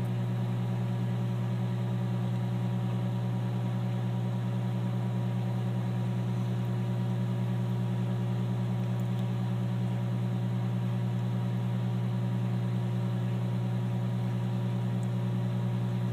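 Microwave oven running mid-cycle with a steady low hum, heating a bar of soap.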